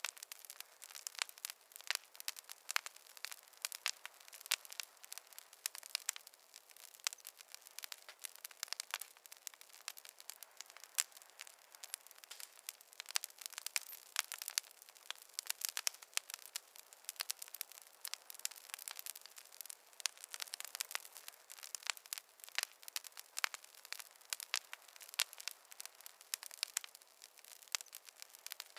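Wood fire crackling in a fireplace: a dense, irregular run of sharp snaps and pops over a soft hiss, with no low rumble.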